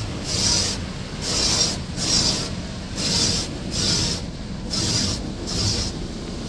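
Automatic car wash working over the car, heard from inside the cabin: a steady low rumble with a hissing swish that repeats evenly, a little more than once a second.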